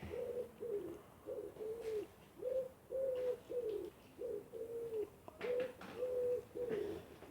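A person gulping down a drink in one long chug, each swallow coming with a short hum from the throat, in a steady run of about two a second.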